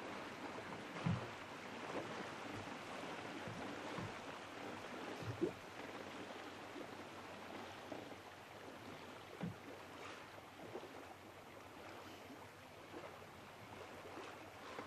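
Gentle water lapping, a faint steady wash with a few soft low knocks about a second in, halfway through and again near ten seconds.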